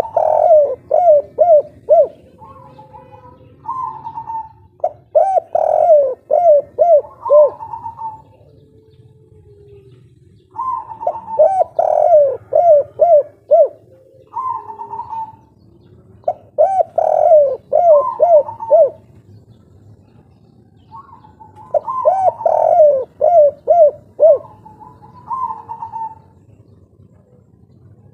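Spotted dove (derkuku) singing a loud local 'kuk 3' song. A phrase of quick coos is followed by one or two higher separate notes, and it repeats about every five or six seconds, five times.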